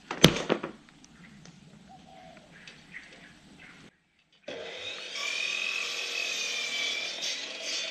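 Wooden deck boards clattering down at the start, the loudest sound. About four and a half seconds in, an electric power saw starts running steadily with a wavering whine as it cuts a wooden decking board to length.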